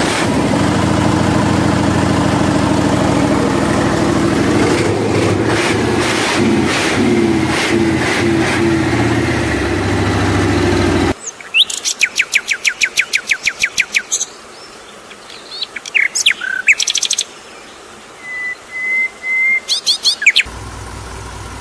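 A truck engine running steadily, with a run of knocks in the middle, cuts off suddenly about halfway. Birds then sing in fast trills of repeated rising notes, short calls and one held whistle. A quieter engine hum comes back near the end.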